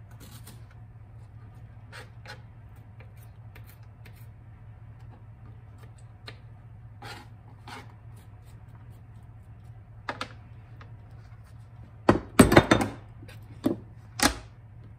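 Kitchen knife chopping onion on a plastic cutting board, with occasional light taps of the blade on the board. A cluster of louder knocks and scrapes comes near the end, over a steady low hum.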